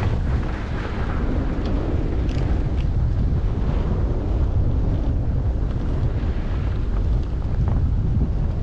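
Wind rushing over the microphone of a camera carried by a skier going downhill: a steady low rumble, with the hiss of skis sliding on snow and a few faint ticks.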